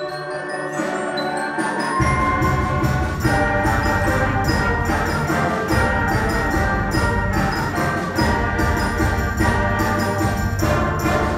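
Middle school concert band playing the final bars of a piece: held brass and woodwind chords over steady percussion strokes, with the low brass and drums coming in strongly about two seconds in.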